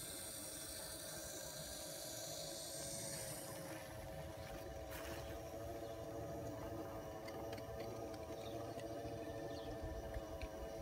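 Model chairlift running: a steady hum from its drive and from the haul rope passing over the wheels, with a click about five seconds in.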